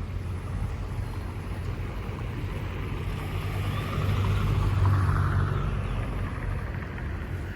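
An engine running steadily over wind and water noise, growing louder about four seconds in and easing off again.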